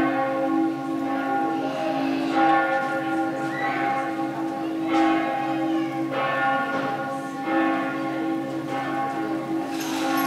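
Bells ringing, a new strike about every two and a half seconds, each one ringing on so that the tones overlap into a continuous sound.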